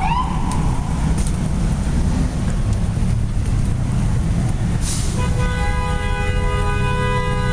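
Steady rumble of gridlocked traffic, then from about five seconds in, vehicle horns sounding together as one long, held honk.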